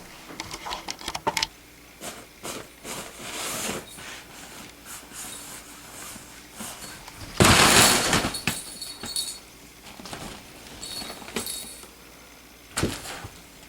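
A cat playing with a small toy: scattered light clicks and rattles, with a louder scuffling clatter lasting about a second midway and a single sharp knock near the end.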